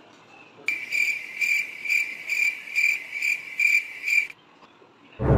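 Cricket chirps, a high-pitched pulse repeating about twice a second, cutting in sharply about a second in and stopping just as sharply after about three and a half seconds. Loud music starts right at the end.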